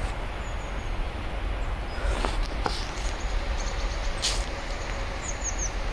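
Steady low rumble of wind buffeting a phone microphone outdoors in snow, with a few soft scattered knocks or crunches.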